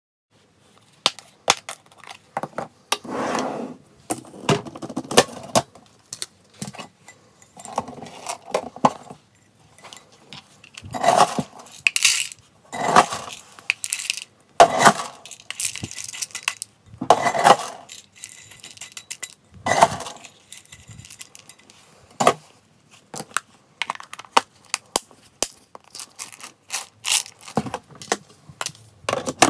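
Dry cat kibble scooped and poured into a hard plastic container in a series of separate pours, the pellets rattling and clinking. Sharp clicks of plastic being handled fall between the pours.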